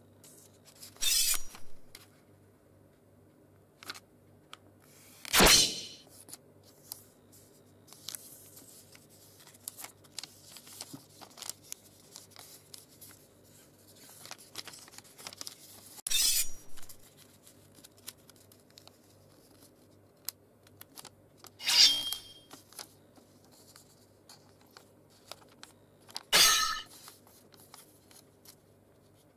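Paper being folded and creased by hand, with faint rustles and small clicks, broken five times by short, loud samurai-sword sound effects, a swish or slash. The last two slashes ring with a metallic tone.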